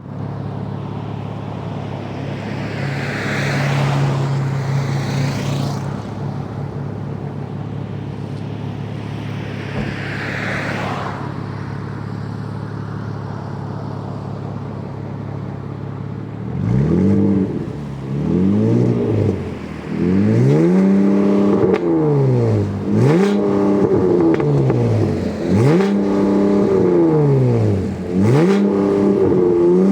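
Stock-exhaust Chevrolet Camaro SS's 6.2-litre V8 idling steadily, then from about halfway revved again and again. Each rev climbs and falls back, and several are held flat at the top against the soft rev limiter. Two brief whooshes pass over the idle.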